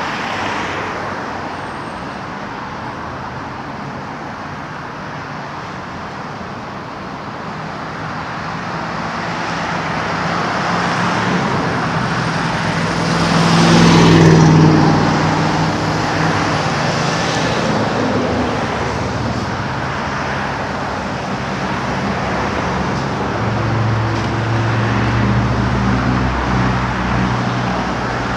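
Steady road traffic on a busy street. A vehicle passes close about halfway through, the loudest moment, and another engine rumbles near the end.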